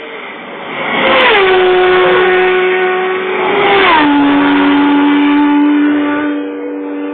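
Race motorcycle engine at full throttle passing close by on the road course, its note dropping sharply about a second in and again about four seconds in, then fading as it goes away.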